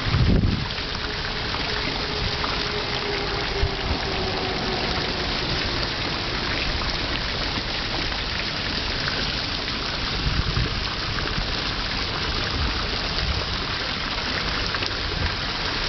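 A fountain's water falling and splashing in a steady hiss, heard close up, with a brief low thump at the very start.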